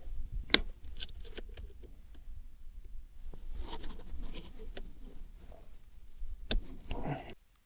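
Scattered light clicks, taps and scraping of hand work on metal, as wire is bound around a broken bicycle luggage-rack strut; the sound cuts off suddenly near the end.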